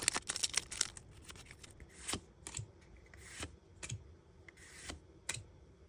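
Trading cards handled one at a time, each sliding off the stack with a brief card-stock swish or snap about once a second, after a denser rustle in the first second.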